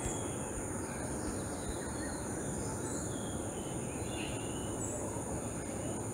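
Background ambience: a steady hiss with two faint, high, steady tones and a few faint short chirps scattered through it.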